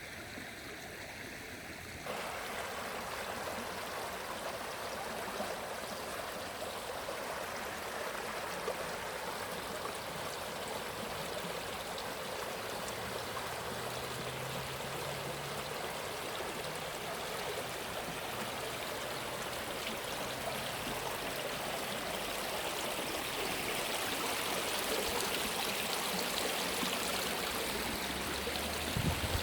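Flowing stream water rushing steadily, growing a little louder about two seconds in and again near the end.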